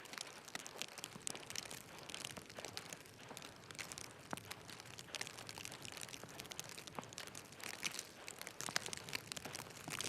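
Continuous dense, irregular crackling and crunching, made of many small clicks with no steady rhythm.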